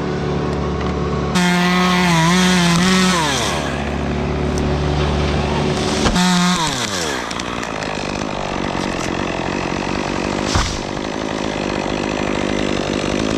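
Chainsaw revved to full throttle twice, each time held a second or two and then released so the engine pitch falls back down. A steady, lower engine runs underneath throughout.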